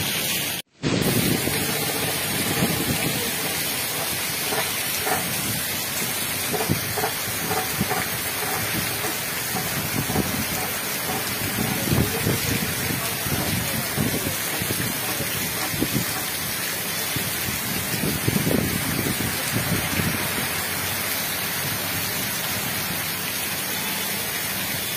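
Heavy rain pouring down onto a flooded street, a steady hiss. It cuts out briefly about a second in.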